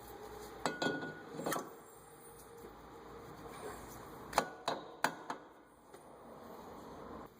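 A new front brake rotor being slid onto the hub of a 1990 Geo Prizm, with several sharp metallic clinks and knocks. One clink about a second in rings briefly, and a cluster of knocks comes about four to five seconds in.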